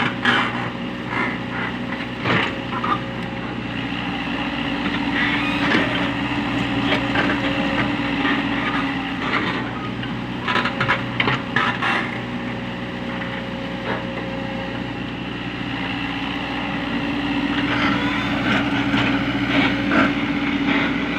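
Komatsu hydraulic excavator's diesel engine running steadily under load, with bursts of scraping and clanking from the bucket working soil at several points.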